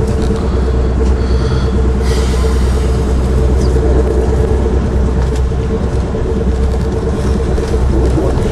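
Amtrak Keystone passenger train running at speed, heard from inside a Metroliner cab car: a steady rumble of wheels on rail with a constant hum, a brief high squeal about a second in and a short hiss about two seconds in.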